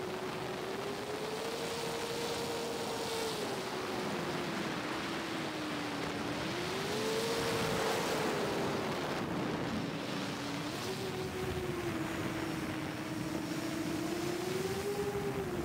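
Motors and propellers of a heavy 8S FPV drone whining in flight, the pitch rising and falling several times with the throttle, over rushing wind noise.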